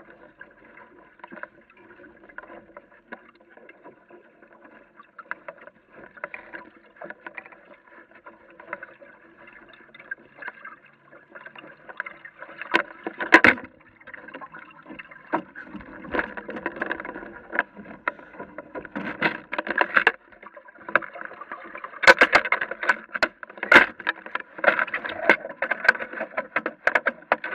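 Water lapping and splashing against the hull of a small Aquamuse sailing dinghy, low and steady at first, then with sharper splashes and knocks through the second half as the boat comes into the shallows.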